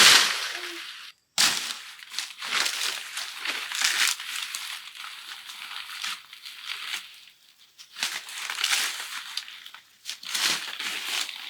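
Bursts of crinkling and rustling, like something being crumpled or handled, with a sudden brief cut-out about a second in.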